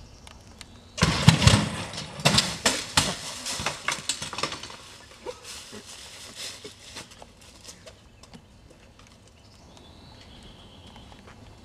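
A BMX rider and bike crash into dense shrubs: a sudden loud crash of snapping branches and thrashing leaves about a second in, then crackling and rustling that dies away over several seconds as he pushes out through the foliage.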